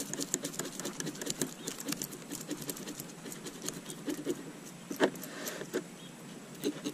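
A knife blade scraping scales off a small sunfish, tail to head, on a plastic cutting board: a quick run of short, scratchy strokes, with one louder stroke about five seconds in.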